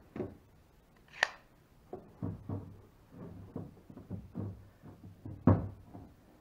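One-handed bar clamps being set and tightened on the edge of a plywood deck panel: a run of short wooden knocks and clicks as the clamp bars and jaws meet the wood, with a sharp click about a second in and the loudest knock about five and a half seconds in.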